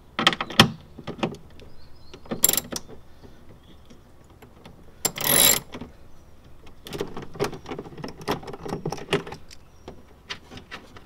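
Hand socket ratchet clicking as it backs out the 10 mm bolts holding a taillight, in short runs of rapid clicks with pauses between, and a few louder rattles near the start and about halfway.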